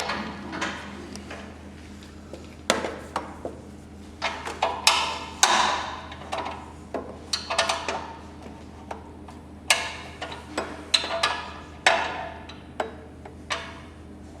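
Irregular metallic clinks and knocks of hand tools and hardware against the aluminium skid plate as it is fitted, some strikes ringing briefly, several coming in quick clusters.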